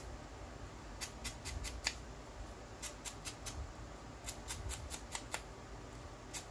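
Small ink pad dabbed against the edges of a paper cutout to ink them: runs of light, quick taps in several clusters.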